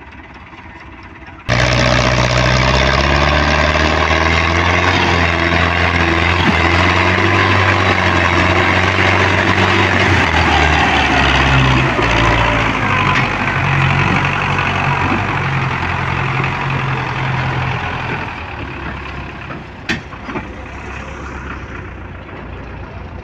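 Belarus tractor's diesel engine running loud under load, hauling a trailer of sugarcane, its pitch shifting up and down in steps. It comes in suddenly about a second and a half in and eases off near the end, with one sharp click about twenty seconds in.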